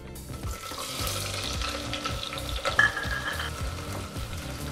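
Onions sizzling as they fry in hot oil and ghee in an aluminium pressure cooker, freshly added and starting to cook. A short ringing tone sounds a little under three seconds in.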